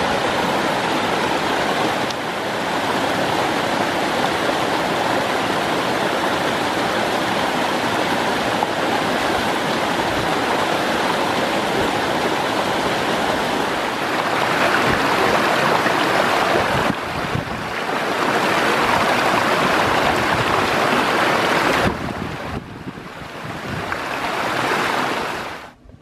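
Small mountain stream cascading over rocks into a pool: a steady rush of water. Its level shifts a few times, drops near the end, then fades out.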